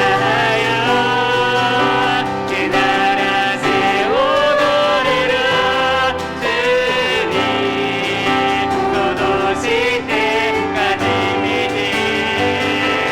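A worship team playing a praise song: piano with singers' voices over it.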